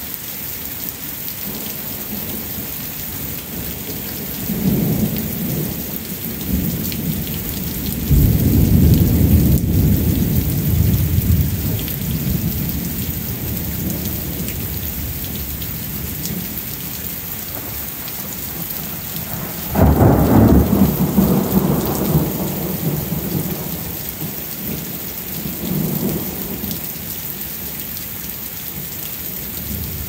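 Steady rain falling, with thunder rumbling several times. There is a short rumble about four seconds in and a long one from about eight seconds. The loudest breaks in suddenly about twenty seconds in and rolls off over several seconds, and a fainter one follows near the end.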